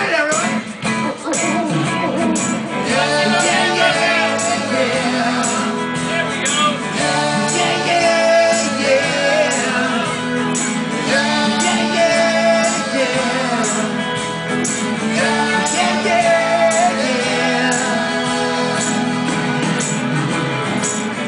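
Live upbeat children's song played through PA speakers, with singing over guitar and a steady beat.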